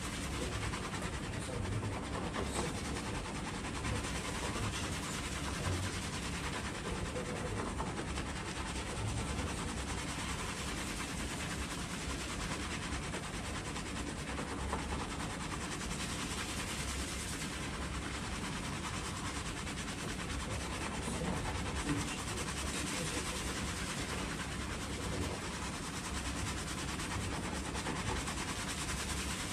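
Fingers scrubbing a heavily lathered scalp in a barber's shampoo, a steady, continuous rubbing of hair and foam.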